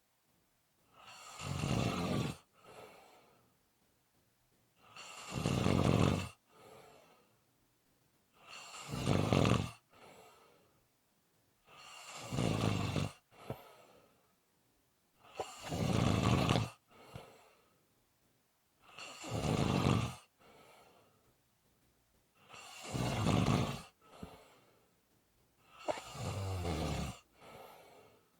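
A person snoring in a slow, regular rhythm: eight loud rasping snores, one about every three and a half seconds, each followed by a softer, shorter breath sound.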